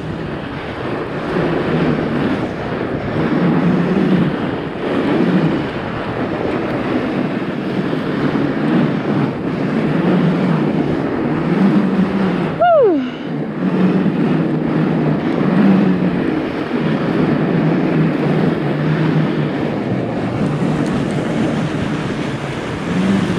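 Wind rushing over an action camera's microphone as a fat bike rolls fast down a packed-snow trail, a steady rushing noise with a low tyre hum that comes and goes. About halfway through, one brief sound glides down in pitch.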